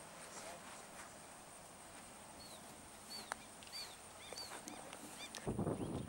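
Birds chirping in a string of short arched calls, with a single sharp click a little after the middle as a golf club strikes the ball. Near the end, low rumbling thumps take over.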